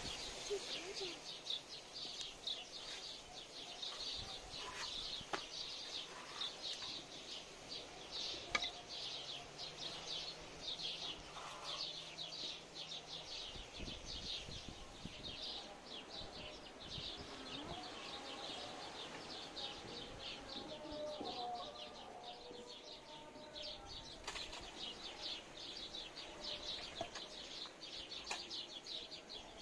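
Birds chirping steadily: a quick, even run of short high chirps, about four a second.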